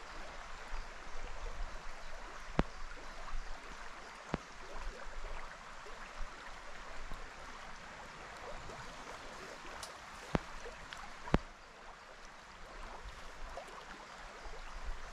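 River water running, a steady rush with a few sharp clicks scattered through it, the loudest about three quarters of the way in.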